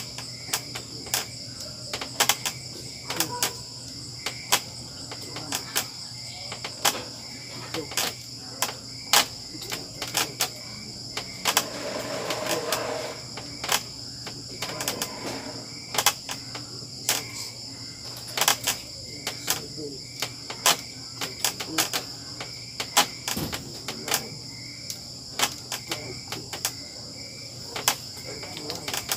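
Crickets trilling steadily, with frequent sharp clicks and knocks from a wooden sit-up bench creaking under a man doing sit-ups. A brief rushing noise comes about twelve seconds in.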